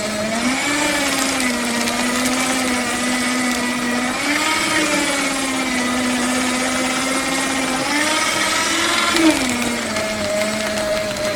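Paper shredder running and shredding paper: a steady motor hum with a crunching hiss of paper. The hum rises in pitch three times as sheets go through, then drops back to its idle pitch near the end.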